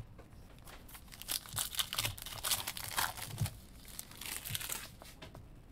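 Foil wrapper of a Panini Illusions football card pack being torn open and crinkled by hand, with a few dull knocks from the pack and hands against the table.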